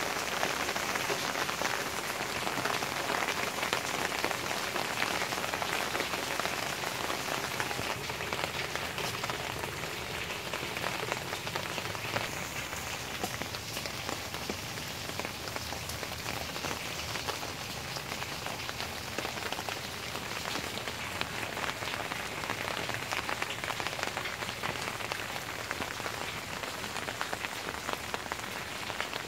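Steady rain falling on leafy garden plants: an even hiss made of many small drops hitting leaves.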